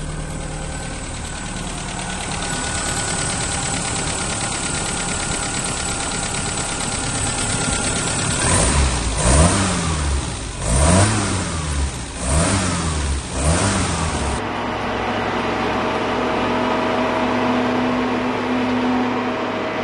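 1959 Land Rover Series II's four-cylinder engine idling, then revved four times by hand at the carburettor throttle linkage, each rev rising and falling back. About two-thirds of the way through it gives way to the steady running of the vehicle driving on the road.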